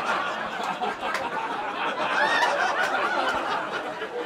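Comedy club audience laughing and chuckling steadily, with a few individual laughs standing out.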